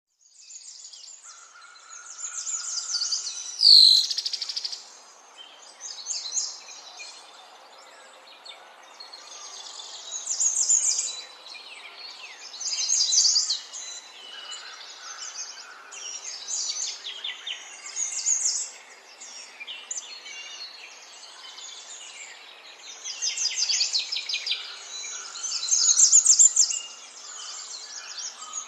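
Small birds chirping and singing, with overlapping high trills that swell in bursts every few seconds and one loud sweeping call about four seconds in.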